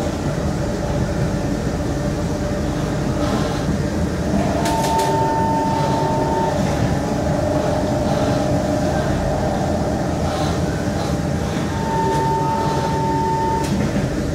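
Kawasaki Heavy Industries C151 metro train running between stations, heard from inside the car: a steady rumble of wheels and running gear on the track. A steady high tone comes in twice, each time for about two seconds.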